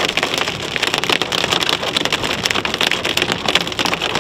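Small hail and heavy rain pelting a moving car's roof and windscreen: a dense, unbroken rattle of tiny taps over steady tyre and road noise, heard from inside the car.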